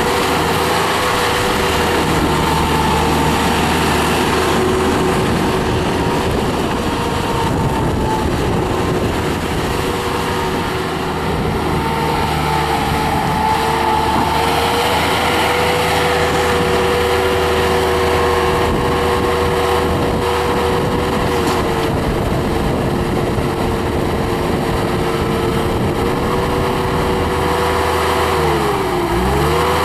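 1998 Bobcat 863 skid steer's 73 hp oil-cooled Deutz turbo diesel running loud and steady at high revs while the machine works. Near the end the engine note dips and recovers twice.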